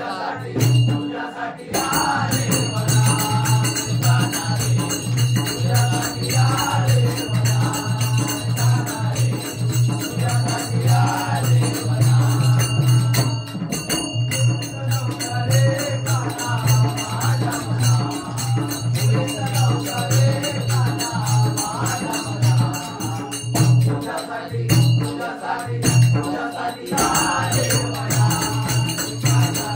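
A group of men singing a Marathi gavlan, a devotional folk song, in unison, with jingling rhythmic percussion keeping the beat.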